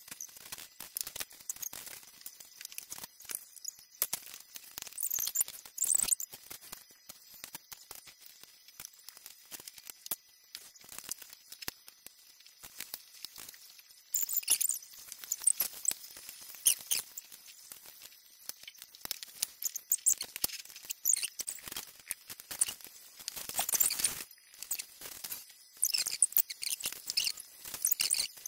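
LEGO plastic bricks being handled: many light, irregular clicks and clatters as pieces are picked from the pile, pressed together and set down on a hard tabletop. The clicking gets busier about halfway through, with a brief louder rustle a few seconds before the end.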